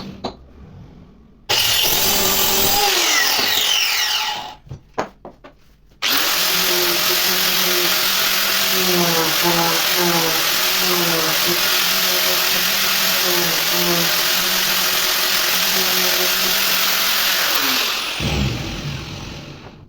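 Handheld electric power tool running in two bursts: a short run of about three seconds, then a longer run of about twelve seconds. In the middle of the longer run its pitch dips repeatedly, as if under load, and it winds down near the end.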